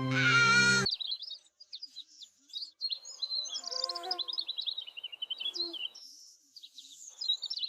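Birds chirping and twittering in quick, short calls, a background birdsong ambience. It follows a brief pitched sound that ends about a second in.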